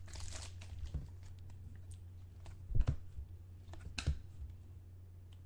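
Trading cards being handled and flicked through on a table: light clicks and rustles, with two louder taps about three and four seconds in, over a steady low hum.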